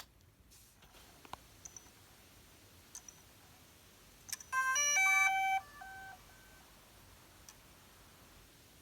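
DJI Mavic Pro drone powering on: a few light clicks, then about halfway through a short startup chime of several stepped beeping notes, the last one quieter.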